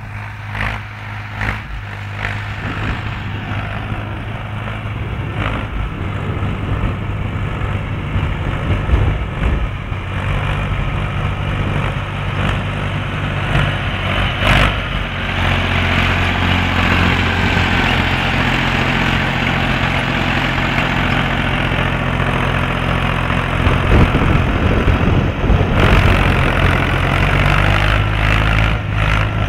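Ursus C-360 3P tractor's diesel engine running steadily under load while pulling a tine harrow over dry, cloddy soil. It grows louder as the tractor comes closer, with a few sharp knocks along the way.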